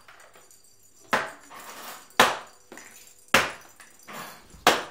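Four sharp smacks of a floorball stick hitting something hard, about a second apart, each with a brief ring-out in the small tiled room.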